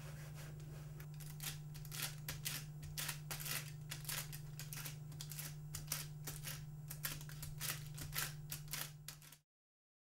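Irregular crisp clicks and crackles, a few a second, as soft warm bioplastic is handled and worked, over a steady low hum. The sound cuts off abruptly near the end.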